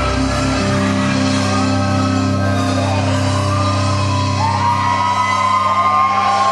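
Live rock band playing loudly: long held low bass and guitar notes under a shouted, wailing vocal line that glides up and down in pitch.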